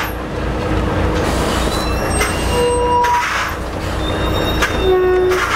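Poultry transport lorry's engine running low and steady, with a few short, high squeals about two and a half and five seconds in.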